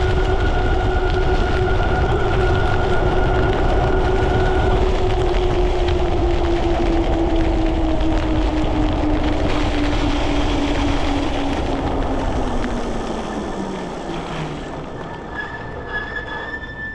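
Ariel Rider Grizzly e-bike at about 32 mph: its hub motor whines over a heavy rush of wind and wet-road tyre noise. The whine falls steadily in pitch and the rush fades as the bike slows almost to a stop.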